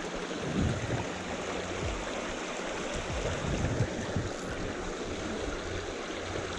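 Shallow stream water rushing steadily over rocks in a riffle. A few soft low thumps come through about half a second in, near two seconds, and just before four seconds.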